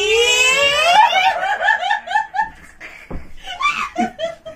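High-pitched laughter: a long shriek that rises in pitch, then breaks into a quick run of short laughs, about five a second, before trailing off into softer chuckles.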